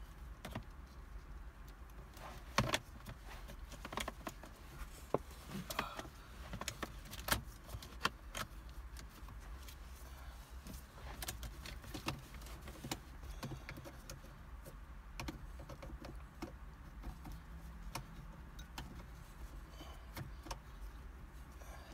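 Irregular clicks, taps and light knocks from hands working under a car's dashboard, fitting the ignition switch onto the back of the ignition key cylinder, with the keys hanging in the cylinder jingling now and then. A steady low hum runs underneath.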